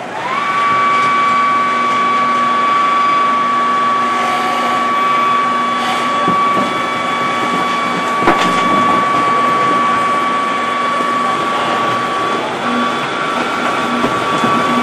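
Underground mining machinery at work as an LHD loader tips a bucket of coal onto a belt conveyor. A high steady machine whine rises just after the start and then holds over dense mechanical noise, with one sharp knock about eight seconds in.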